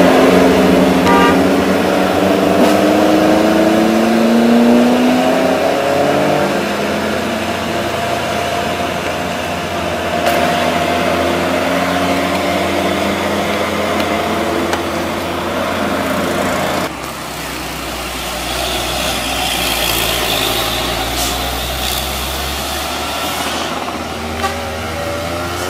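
Heavy truck engines pulling up a steep hairpin climb, their pitch slowly rising and falling, with cars and motorcycles passing. The sound changes abruptly about two-thirds of the way through.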